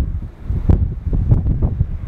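Strong gusty wind buffeting the microphone: uneven low rumbling gusts with a couple of sharp pops.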